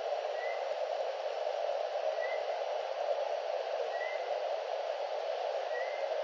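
Steady mid-pitched hiss from the nest webcam's microphone, with a faint short rising chirp repeating about every two seconds.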